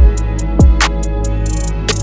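Background music with a beat: deep booming kick drums that drop in pitch, short ticking hi-hats, and sustained low notes underneath.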